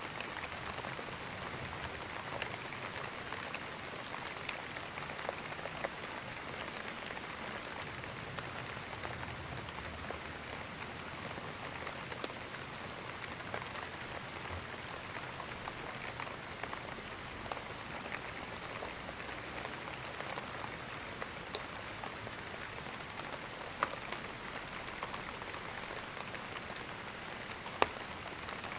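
Steady rain falling, an even hiss sprinkled with individual drops ticking on a surface, a few sharper drop hits near the end.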